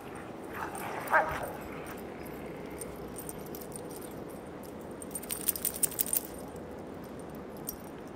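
Dogs playing in snow: one dog gives a short yip about a second in, and metal collar tags jingle in a quick run of clinks around five to six seconds in.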